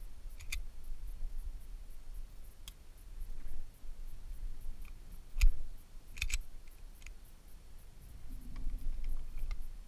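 Handgun being handled, making a scattered handful of small clicks and knocks, with one sharper knock about five and a half seconds in and a quick pair just after. No shots are fired.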